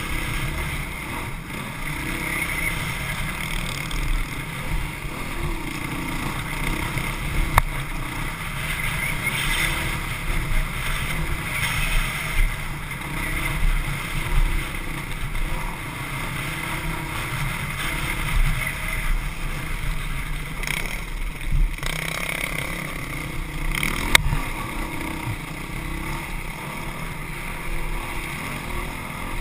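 Honda CRF450X dirt bike's engine running under load on a rough trail, with wind buffeting the microphone. Two sharp knocks stand out, one early and one later.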